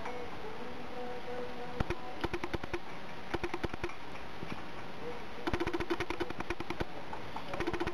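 A cat lapping water from a mug: quick, sharp clicks at about five a second, in four runs separated by short pauses.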